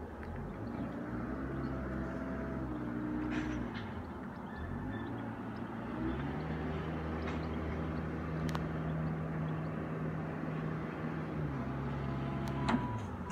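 A motor running and changing speed: its pitch rises about half a second in, dips briefly, holds steady for several seconds, then drops near the end. A vehicle's reversing beep starts right at the end.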